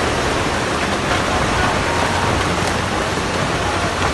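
Landslide: earth, rock and water rushing down a hillside slope, a loud steady rushing noise with no separate impacts.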